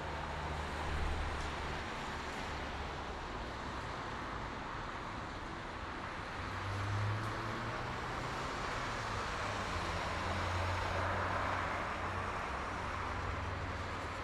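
Steady highway traffic at night: a continuous wash of tyre and engine noise, with low engine hum swelling as vehicles pass, the most noticeable about seven seconds in and again from about ten seconds.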